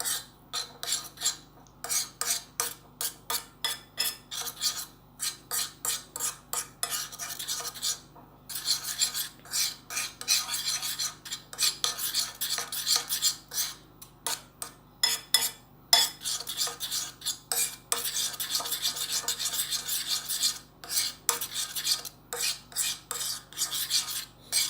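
Teaspoon stirring grated garlic and honey together in a dish, metal scraping and clinking against it in quick repeated strokes, with stretches of faster, more continuous stirring.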